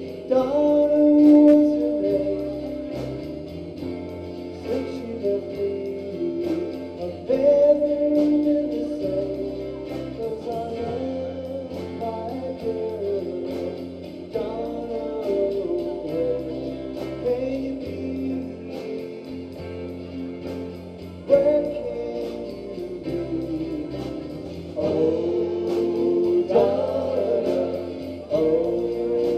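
Live rock band playing a song: a man singing lead into a microphone over electric guitars and drums.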